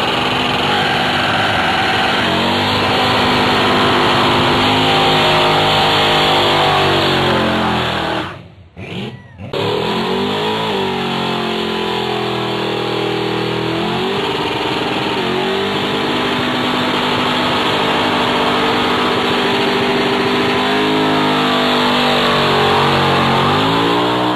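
Car engines held at high revs during tyre-smoking burnouts, the tyres spinning on the pavement. The revs dip and climb again several times, and the sound drops out briefly about a third of the way in before rising again.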